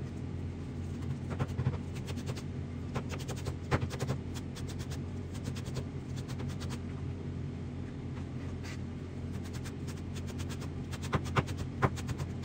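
Steady low hum of a kitchen appliance's motor, with many scattered clicks and scrapes of utensils over it.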